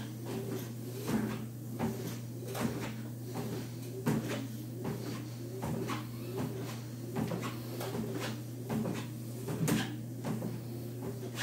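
Home treadmill running with a steady motor hum, and feet landing on the moving belt in an even rhythm of about one step every two-thirds of a second.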